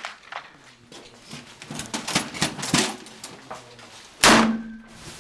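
A .36 calibre Pietta 1851 Navy black-powder revolver fires one loud shot about four seconds in, the report trailing off over under a second. Quieter knocks come before it.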